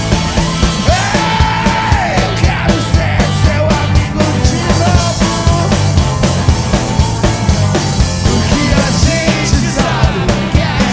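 Live rock band playing loud, fast rock and roll, with drums, distorted guitars and bass and a shouted vocal.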